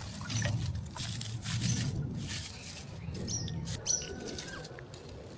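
Dry twigs and leaves rustling and snapping as they are handled and laid into a fire lay, a run of short irregular crackles.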